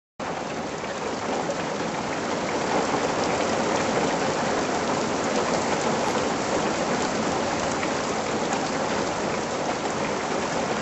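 Heavy rain shower pouring down, a steady dense hiss with fine pattering of drops. It starts and stops abruptly.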